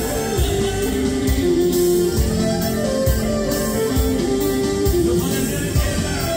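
Live band dance music: a clarinet plays a winding lead melody over a steady beat and band accompaniment.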